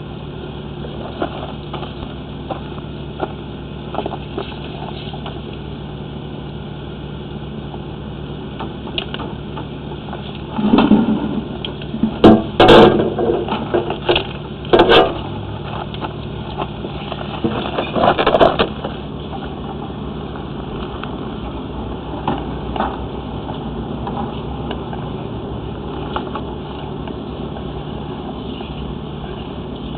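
A steady mechanical hum throughout, with a run of louder irregular knocks and rushing noises about a third of the way in that lasts several seconds.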